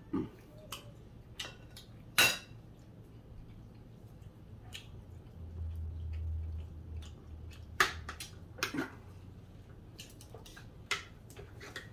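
Spoons and forks clinking and scraping against plates during a meal: a handful of sharp, separate clinks, the loudest about two seconds in and again near eight seconds.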